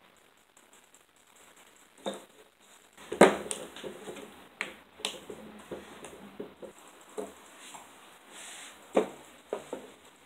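Scattered clicks and knocks from hands working on a red plastic 12-gauge birdshot shell, opening its plastic wad and taking out the lead shot. The loudest knock comes about three seconds in, with further clicks around five and nine seconds.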